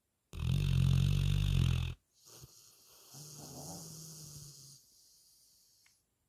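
A sleeping retriever snoring: one loud, rattling snore of about a second and a half, followed by a longer, quieter breath with a faint hum.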